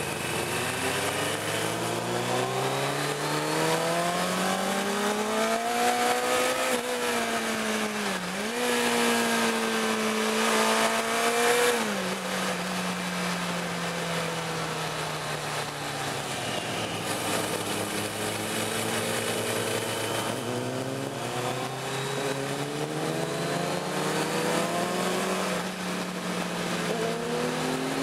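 Sportbike engine heard from the rider's seat. It climbs through the revs for several seconds, dips briefly at a gear change about eight seconds in, then eases off and falls slowly, before pulling up through the revs again near the end.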